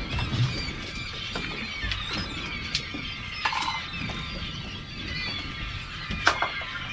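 A flock of seabirds working a bird show, many squealing calls overlapping without pause, with scattered sharp clicks and knocks.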